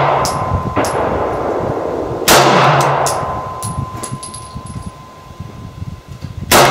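Glock 19 9mm pistol firing slow, aimed single shots: one about two seconds in and another at the very end, each echoing on for a second or two.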